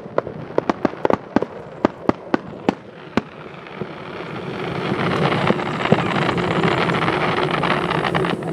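Aerial fireworks shells bursting: a quick run of sharp bangs and crackles, about three or four a second, for the first three seconds. From about four seconds in a steady rush of noise swells up, with single bangs over it.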